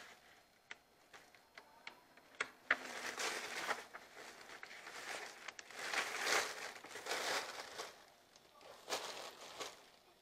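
Bouts of rustling and crinkling, with scattered small clicks in between.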